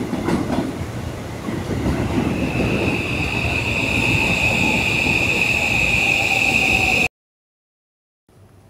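Train running on rails with a loud rumble, a high steady whine coming in about two seconds in and growing louder; the sound cuts off abruptly about seven seconds in.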